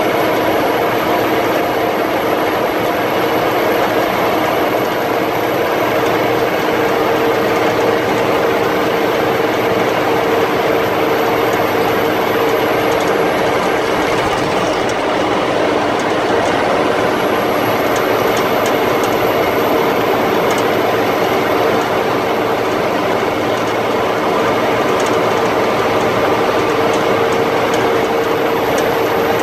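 Inside the cab of an M35A2 2½-ton military truck driving at road speed: the diesel engine and drivetrain run steadily, a constant hum and whine over road noise.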